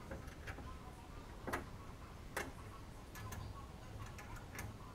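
Scattered light metallic clicks and taps of a hand tool and bolts against the steel inner door panel of a car door as a window regulator is bolted in. Two sharper knocks come about one and a half and two and a half seconds in.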